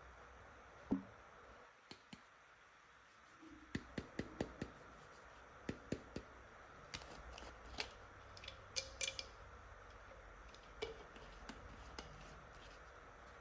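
Plastic toy hairdressing tools being handled: irregular clusters of sharp little clicks and clacks, with one louder knock about a second in.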